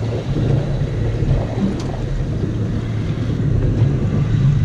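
Wind buffeting the microphone over the wash of waves around a small boat on open water.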